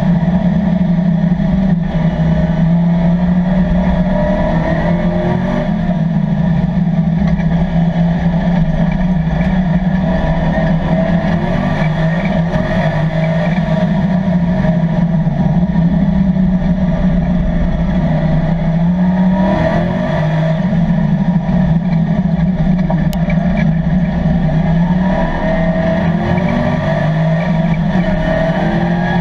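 LS3 V8 in a 1987 Chevrolet Camaro Z28 race car running hard at racing speed, heard from inside the cabin. The engine note holds high, dips briefly about five, nineteen and twenty-five seconds in, and climbs again each time.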